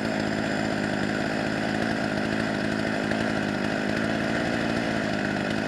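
Husqvarna 44 two-stroke chainsaw running steadily at high revs.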